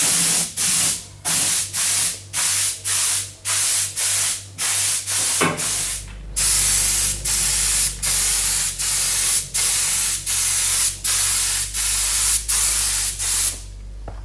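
Paint spray gun hissing in rapid on-off bursts, about two to three a second, as the colour coat goes onto a steel narrowboat hull over its epoxy primer. A low steady hum comes in about halfway through. The spraying stops shortly before the end.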